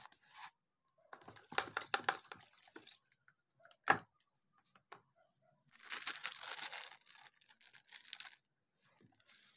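A toothbrush scrubbing a clear plastic phone case for the first half-second, then handling noises. A single sharp click about four seconds in is the loudest sound, and a crinkling rustle of a sachet or packet being handled runs about six to seven seconds in.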